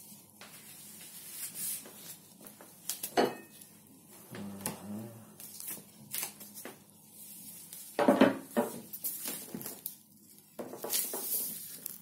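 Knocks, scrapes and clunks of a knife and a large wax-coated cheese wheel being cut and handled on a cutting board on a hard countertop, with the loudest clatter a little past the middle and more scraping near the end.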